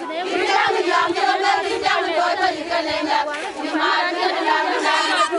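A crowd of women singing together in a chant, many voices overlapping.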